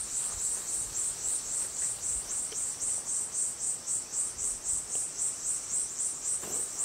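Insects calling in a steady high-pitched chorus that pulses about four times a second.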